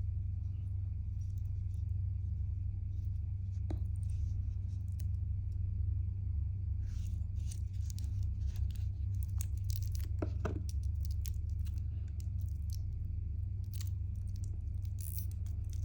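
Watch box and packaging being handled: scattered small clicks, scrapes and rustles, busiest in the middle and again near the end, over a steady low hum.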